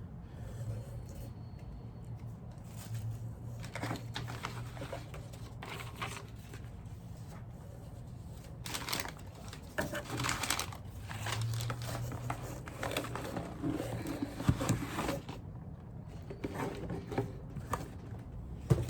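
Packaging crinkling and rustling in irregular bursts as a box is unpacked, busiest around the middle, over a steady low hum.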